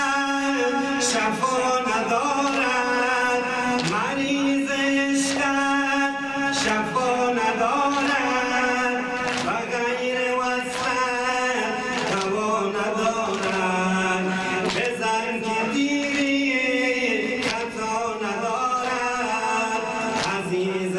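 A man chanting a Persian mourning lament (noha) into a microphone, with a group of mourners striking their chests in unison in a steady beat about once every second and a half.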